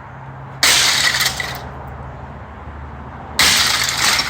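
Two sudden crashes of a printer's plastic casing being struck and broken open, about three seconds apart, each with a brief rattle of debris as it fades.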